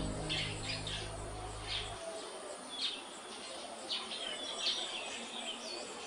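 Collared kingfisher calling: short high notes at irregular intervals. Background music fades out over the first two seconds.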